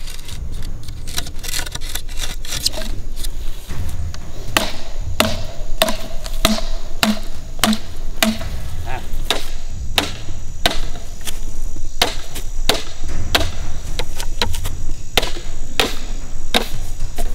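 Knife blade chopping into a green bamboo pole: repeated sharp strikes at irregular intervals, roughly one or two a second, some leaving a short ringing tone in the hollow cane.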